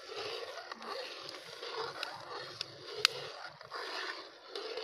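A slotted metal spatula stirs and scrapes in repeated strokes through sugar syrup bubbling in ghee in a metal karahi, with a sharp tap of metal on the pan about three seconds in. The sugar is cooking toward brown.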